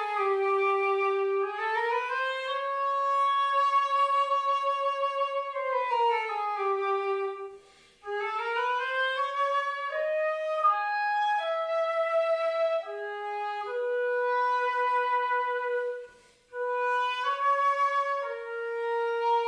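Solo woodwind instrument playing a single slow melody, sliding smoothly between notes at first and then moving in separate steps, with two short pauses about eight and sixteen seconds in. It is rendered through a computer simulation of the theatre hall's acoustics.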